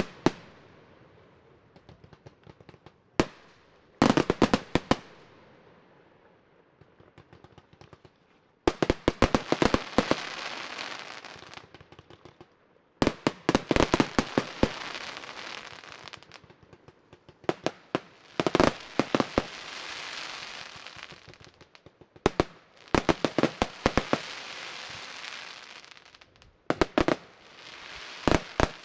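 Aerial fireworks display: volleys of sharp shell bursts every few seconds, several bangs in quick succession in each volley, each volley followed by a hiss that fades over a couple of seconds.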